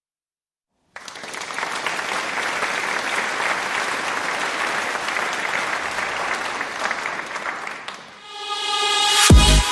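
Applause, starting suddenly about a second in and holding steady, fading near the end as electronic music swells in and hits a heavy beat.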